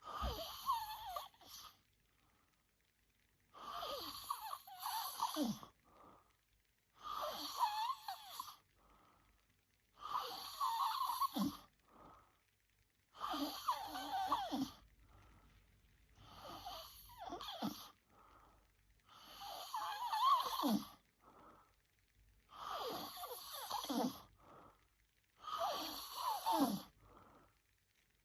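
A young woman snoring in her sleep: nine snoring breaths about three seconds apart. Each snore lasts a couple of seconds and carries a high, wavering pitched tone, with quiet pauses between.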